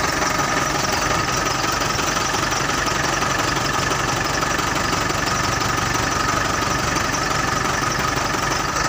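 Freshly rebuilt PS 125 truck diesel engine idling steadily after its injection pump has been set, with a constant diesel knock.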